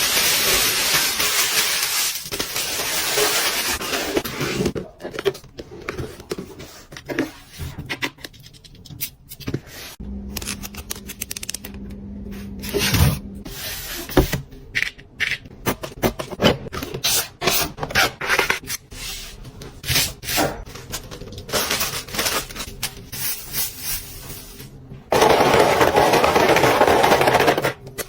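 Long fingernails scratching and tapping on product packaging. A stretch of dense rubbing and scraping opens it, followed by many quick separate taps, and a loud stretch of scratching comes near the end.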